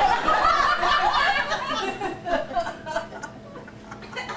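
Audience laughing, dying down over the last couple of seconds.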